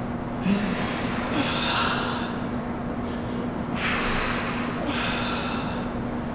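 Heavy, forceful breathing of people exercising: about four loud exhalations a second or two apart, the strongest about four seconds in, over a steady low hum. The breaths come with the effort of supine push-ups, exhaling hard at the top of each rep.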